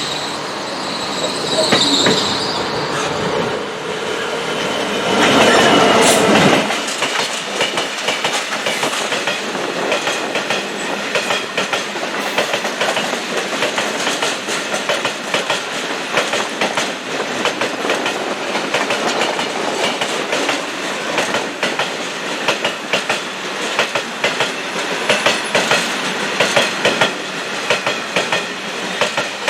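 A train running past on the rails, its wheels clicking rhythmically over the rail joints. A high wheel squeal sounds in the first few seconds, and the train gets louder for a moment about five seconds in.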